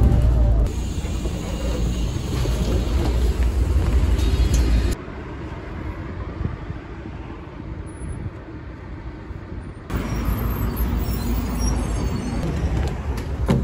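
Low engine rumble and road noise of a Hyundai natural-gas city bus, heard from inside the cabin while it drives, cut off abruptly about five seconds in. A quieter stretch follows, and from about ten seconds in there is street traffic noise as a city bus draws up close by.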